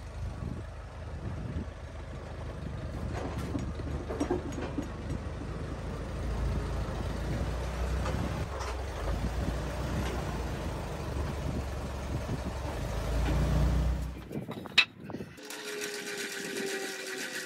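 Allis-Chalmers WD45 tractor engine running at low speed while backing a trailer. About 15 s in it cuts off after a sharp click, and a hand-cranked trailer tongue jack follows with a whirring gear sound and slowly falling tones.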